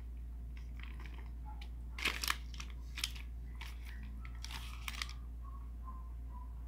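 Plastic sheet crinkling in several short bursts between about two and five seconds in, as gutted traíra fish are shifted around on it by hand.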